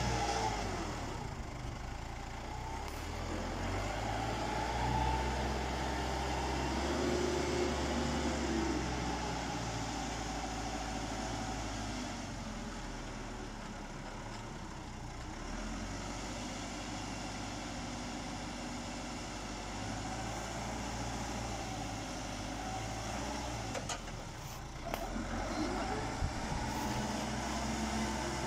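Fermec 860 backhoe loader's diesel engine running as the machine drives and lifts its loaded front bucket, its pitch rising and falling with the revs near the start and again near the end. A few short knocks come near the end.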